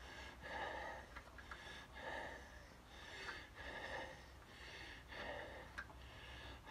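A man breathing heavily, faint puffs in and out about once a second.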